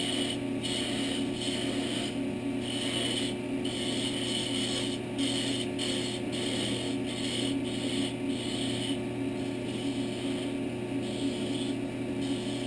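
Small wood lathe running with a steady motor hum while a small skew chisel cuts a little ball into the spinning wood, a scraping hiss coming and going in short strokes as the tool touches the work.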